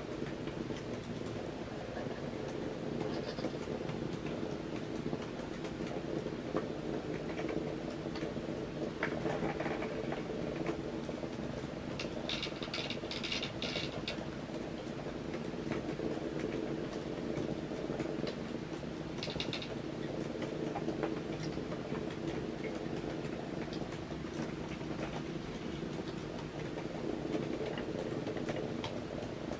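Two Hexbug Nano vibrating micro-robots buzzing steadily, their vibration motors running and their small legs skittering over a wooden board, with a few brief clicks and scratchy bursts from time to time as they knock against the Lego Duplo bricks.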